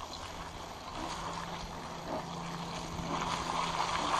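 Bicycle tyres rolling through dry fallen leaves, a steady rustling noise with wind on the microphone, growing louder near the end. A faint steady hum runs underneath.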